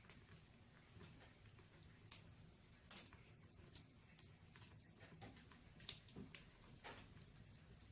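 Firewood burning in a fireplace, giving faint, irregular crackles and pops with a few sharper snaps now and then.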